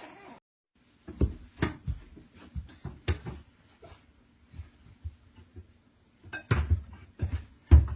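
Irregular knocks and clattering thumps, a few to the second, growing busier near the end with one loud thump.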